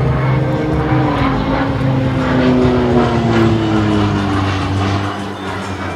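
Embraer EMB 312 Tucano's single turboprop engine and propeller droning as the aircraft flies an aerobatic manoeuvre, its pitch slowly falling.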